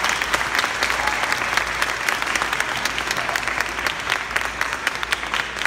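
Audience applauding: many hands clapping in a dense, steady patter, with a few sharper claps close by. The applause thins slightly near the end.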